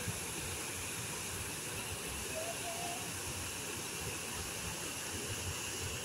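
Water rushing steadily down the steps of a tiled cascade fountain and splashing into the pool below, a continuous even rush.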